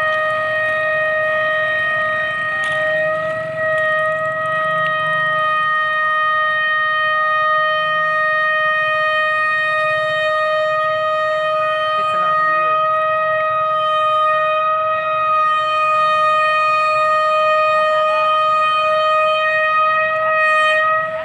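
Diesel locomotive's horn sounded in one long unbroken blast, a steady tone that cuts off suddenly near the end, warning people standing on the track ahead of the train. Faint voices of onlookers underneath.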